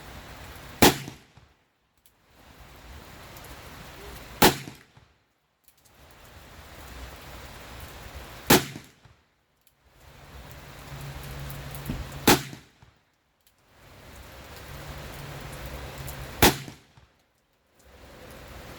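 Five single gunshots from a .45 Colt revolver, fired slowly and evenly about four seconds apart.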